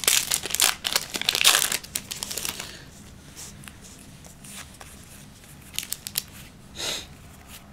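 Foil wrapper of a Yu-Gi-Oh booster pack crinkling and tearing open for the first two and a half seconds, then the softer rustle and ticks of the trading cards being handled and fanned out.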